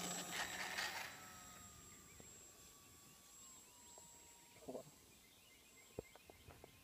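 Electric motor and propeller of a HobbyZone Apprentice S RC trainer plane whining under power on takeoff. It is loud for the first second, then thins to a faint high whine that drops slightly in pitch as the plane climbs away.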